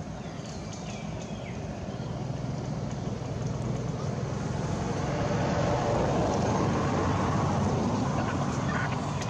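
A road vehicle passing by: a steady engine and road noise that grows louder, is loudest about six to eight seconds in, then begins to fade.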